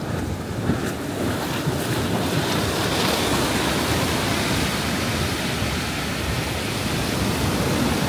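Black Sea storm surf: heavy waves breaking and washing up the beach in a continuous wash of noise that swells over the first few seconds.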